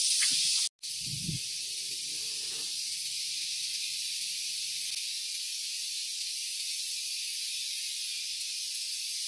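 Steady high-pitched drone of forest insects, with a dull low thump about a second in.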